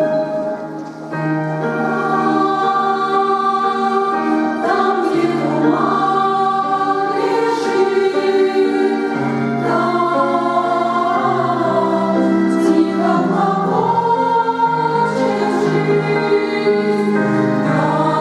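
Church choir singing in several parts, with long held chords that come in about a second in.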